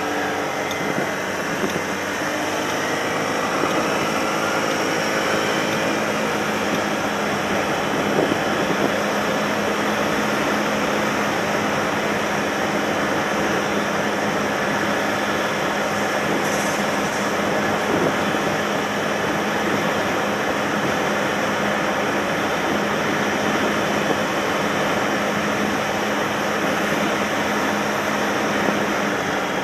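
Honda Today AF61 scooter's 49cc four-stroke single-cylinder engine running steadily as it is ridden on a test ride after repair, mixed with a steady rush of wind and road noise. The engine note rises a few seconds in as the scooter speeds up.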